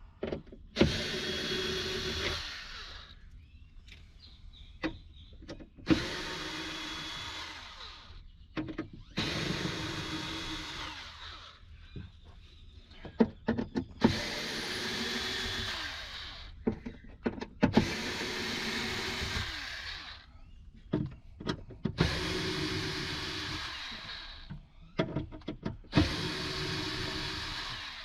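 Cordless screw gun backing screws out of wood, in about seven runs of roughly two seconds each, the motor whine dropping as each run stops, with small clicks and handling knocks between runs.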